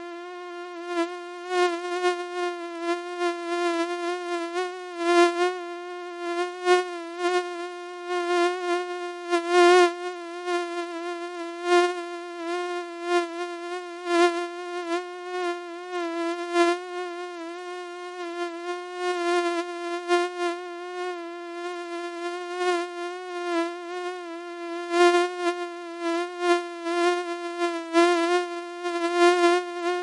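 Mosquito buzzing in flight: one steady high whine with its pitch wavering slightly, growing louder and softer many times over.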